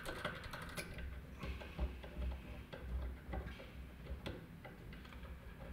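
Faint, irregular small clicks and ticks of hands and a small tool handling the metal parts of an Elma rotary switch held in a vise, a quick run of clicks in the first second and then scattered ones.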